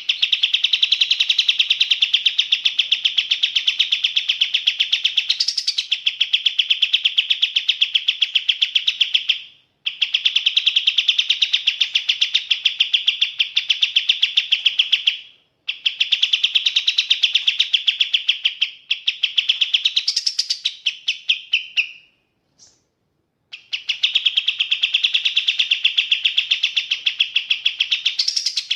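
A kapas tembak songbird singing in long, fast, high chattering trills of rapidly repeated notes. The bouts break off briefly about ten and fifteen seconds in, and again for over a second near twenty-two seconds.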